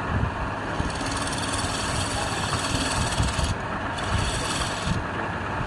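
Wood lathe running with something rubbing against the spinning wood: a steady low rumble under a hiss that comes in about a second in and breaks off briefly twice.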